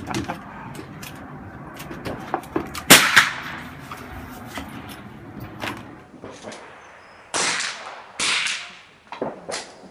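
Rifle shots on a range: one loud, sharp crack about three seconds in, then more shots and clicks, fainter, in the last few seconds.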